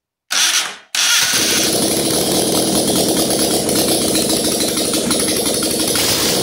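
Citroën GS air-cooled flat-four engine, its carburettor primed by hand with petrol, starting: it fires briefly, falters for a moment, then catches about a second in and keeps running steadily.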